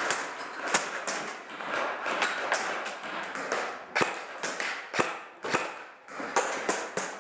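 Scattered single sharp cracks and knocks at uneven intervals from airsoft fire, with shots and BBs striking hard surfaces, over a steady rustling of movement and gear.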